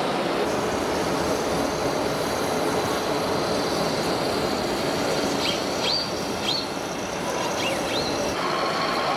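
Steady din of an indoor RC model-truck show hall, with no clear speech, and a few short high squeaks between about five and eight seconds in.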